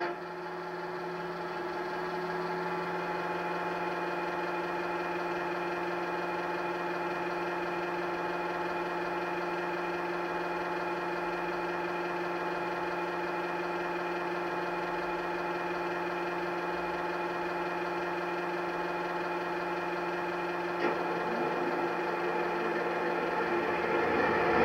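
A model Class 68 locomotive's DCC sound decoder plays a diesel engine idling steadily through an EM2 bass speaker and a small tablet speaker. There is a click about 21 seconds in, and the engine sound grows louder toward the end.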